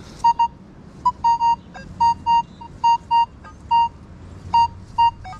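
Nokta Makro Legend metal detector giving its higher target tone: a string of short beeps at one steady pitch, often in pairs, coming irregularly as the coil passes over a target.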